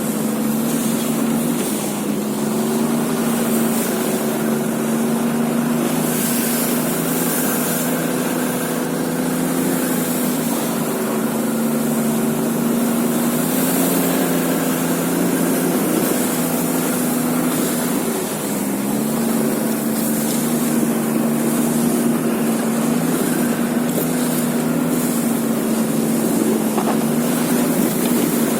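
A small vehicle engine running steadily at travelling speed, its note holding with slight rises and falls and dipping briefly about two-thirds of the way through, over a constant hissing wash.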